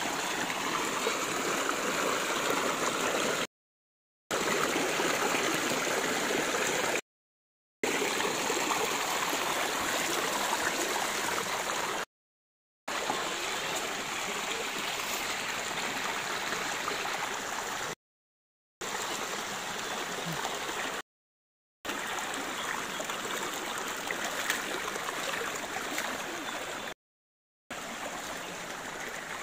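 Shallow rocky stream flowing over and between stones, a steady wash of running water. The sound drops out to complete silence for under a second six times.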